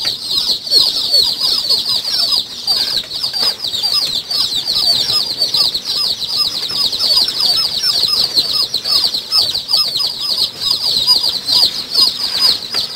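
A flock of day-old kampung chicks peeping together without pause: many short, high chirps, each falling in pitch, overlapping into one steady chorus.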